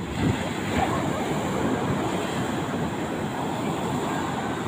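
Rough sea waves and wind buffeting the microphone, a steady rushing noise.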